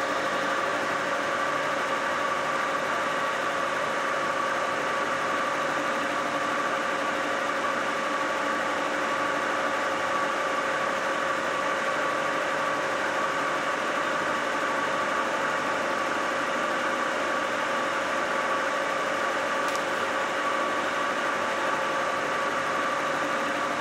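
Vertical milling machine's face-milling cutter turning at 700 rpm and taking a 0.05 mm roughing cut across a Hyundai D4CB diesel cylinder head's deck. It runs as a steady machine whine with an even cutting noise, and a faint click comes near the end.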